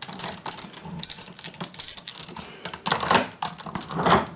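Metal chain links clinking and rattling irregularly as a chain is handled and wrapped to secure a fridge door.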